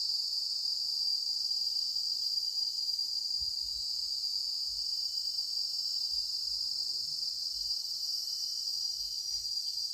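Steady, high-pitched chorus of forest insects shrilling without a break, with fainter, lower insect tones underneath.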